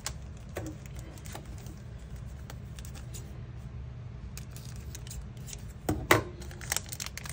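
Scissors snipping open a clear plastic packet and a thin metal cutting die clicking as it is handled: scattered light clicks, with the sharpest ones about six seconds in.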